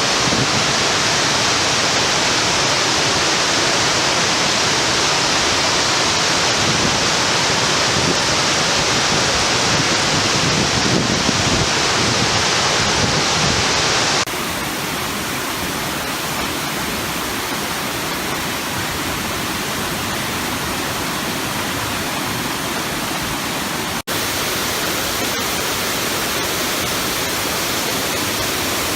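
Waterfall: water falling and splashing in a steady, loud rush. About halfway through the sound steps down a little and turns slightly duller, and it drops out for an instant about five seconds before the end.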